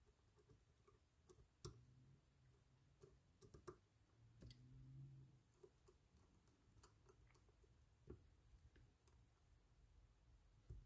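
Near silence, broken by a few faint, scattered clicks of a small screwdriver turning the oiled set screw in the handle of a Penn Senator conventional reel.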